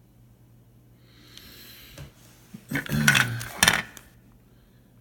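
Small replacement parts being handled: a soft rustle, then a quick clatter of hard knocks and clicks as they are turned over and knocked together.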